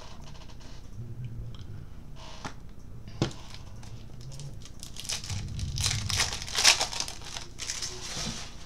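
The foil wrapper of a trading-card pack being torn open and crinkled by hand: a single sharp click about three seconds in, then a few seconds of crackly tearing and crumpling, loudest near the end.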